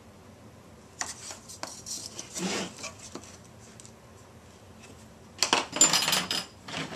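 A wooden ruler and a sheet of plexiglass handled on a tabletop: scrapes and light clacks starting about a second in, then a louder stretch of scraping and rubbing near the end.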